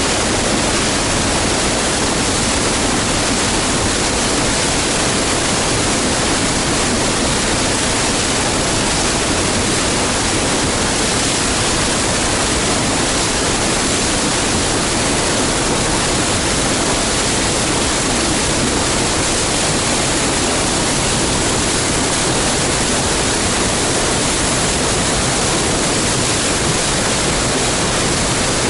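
Waterfall in spring flow: a loud, steady, unbroken rush of falling water.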